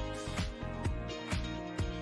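Quiet background music between stretches of narration.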